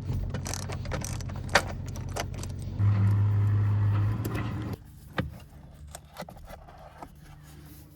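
Power driver with a T30 Torx bit running to back out the bolts that hold the steering-wheel airbag, its motor humming steadily and loudest for about a second near the middle. Small metal clinks of the bit and bolts come throughout. After about five seconds the motor stops and only quieter clicks and handling remain.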